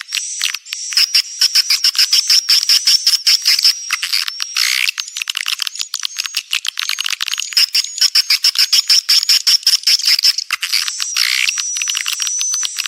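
Swiftlet lure call recording: a dense, fast twittering of high chirps and clicks with nothing below about 1 kHz. It is a 'birahi' (mating-call) sound pattern, played to call swiftlets into a nesting house.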